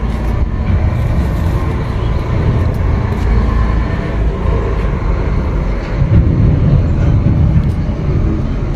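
Scania P410 truck's diesel engine idling steadily, heard from under the chassis.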